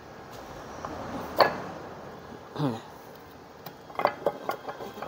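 Metal parts of a transfer case, its drive chain and gear, clinking as they are worked by hand into the case: one sharp clink about a second and a half in, then a quick run of light clicks near the end.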